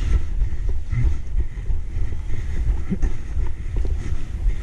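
Wind buffeting a helmet-mounted camera's microphone: a loud, low, fluctuating rumble, with a few short knocks.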